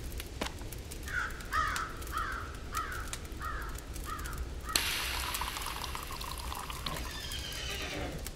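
Campfire crackling while a crow caws about six times in steady succession. About halfway through, liquid starts pouring with a splashing hiss that fades toward the end.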